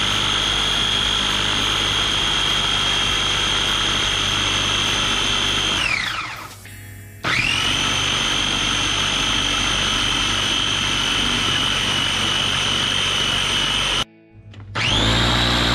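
Electric food processor motor running with a steady high whine, emulsifying egg, mustard and olive oil into mayonnaise. About six seconds in it winds down and stops for about a second, then starts up again. It cuts out briefly near the end.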